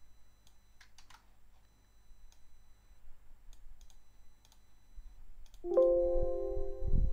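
A few sharp computer mouse clicks over a faint low hum. About five and a half seconds in, a held sound with several steady pitches comes in, with loud low rumbling beneath it.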